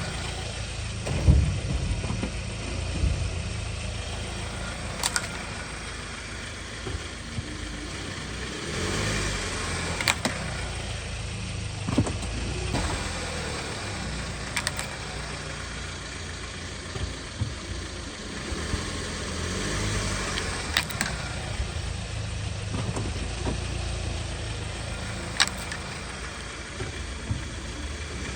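2014 Hyundai Sonata's engine running at low speed as the car rolls slowly back and forth over the slabs. A few sharp clicks stand out now and then.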